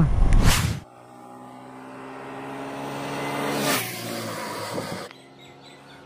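A brief rush of wind on the microphone, then a road vehicle's engine growing louder as it approaches and passes about four seconds in, its pitch dropping slightly as it goes by. After a cut near the end, a steadier, quieter engine hum with faint bird chirps.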